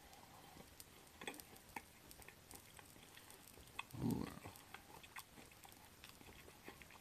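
Chewing of pan-fried shrimp shumai with crisp skins: faint small crunching clicks throughout, with a brief low sound about four seconds in.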